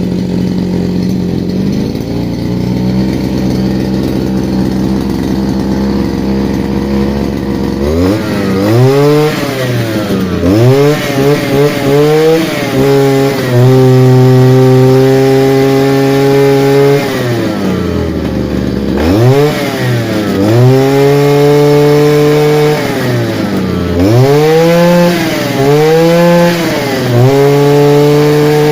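Svityaz petrol brush cutter's small two-stroke engine idling steadily, then from about eight seconds in revved up and down again and again, with revs held high for a few seconds at a time.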